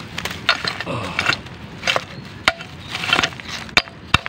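A hand digging tool scraping and chopping at soil and stones in a string of short strokes, with a couple of sharp knocks near the end.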